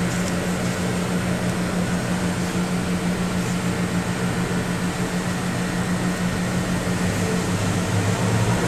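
Steady low mechanical hum over a constant hiss.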